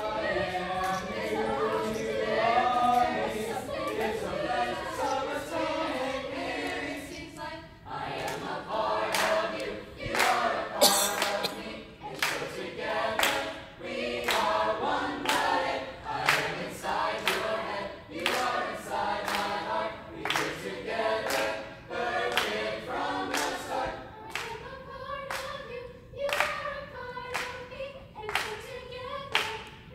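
High school SAB choir singing a cappella, many voices in harmony, with steady rhythmic clapping on the beat that becomes more prominent about eight seconds in.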